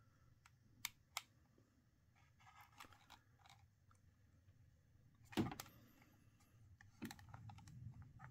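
Quiet handling noise of a hard plastic toy speeder being turned in the hands: two light clicks about a second in, a louder plastic knock about five and a half seconds in and another about seven seconds in, with faint rubbing between.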